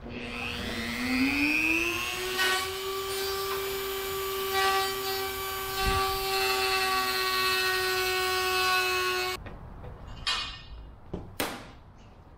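Corded handheld rotary tool spinning up to speed with a rising whine, then running at one steady high pitch while it cuts, rounding out the ends of slots in a wooden part so it fits. It stops abruptly, and a few clicks and knocks follow.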